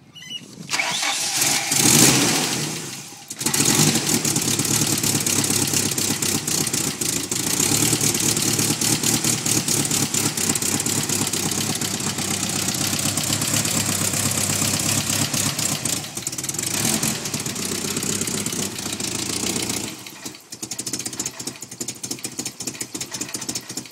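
1990 Nissan 240SX's KA24E 2.4-litre four-cylinder engine being started, with a brief drop about three seconds in, then idling with a steady, rapid rumble. The idle is the bad, misfiring idle the owner complains of, and it dips again near the end.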